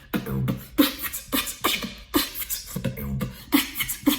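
Beatboxing: a vocal pattern of sharp percussive hits with two deep bass tones, a beatboxer showing off what he calls his loudest sound.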